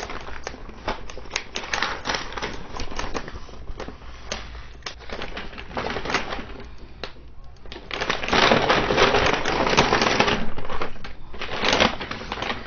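A cardboard product box being opened by hand: a run of small clicks and scrapes, then a few seconds of loud rustling of the packaging about eight seconds in, and another short rustle near the end.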